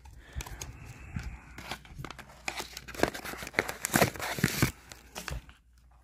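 Cardboard phone box and its paper packaging being handled: rustling, crinkling and small knocks, busiest about halfway through, then dying down near the end.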